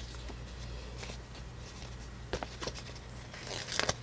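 Light taps and paper rustles from handling planner stickers: a few scattered ticks, then a quick cluster near the end, over a steady low hum.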